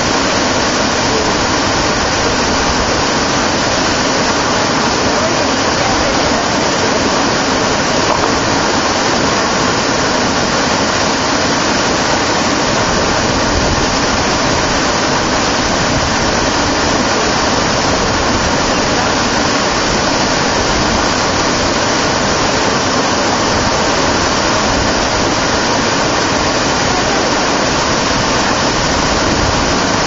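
Waterfall pouring into a plunge pool: a loud, steady rush of falling water.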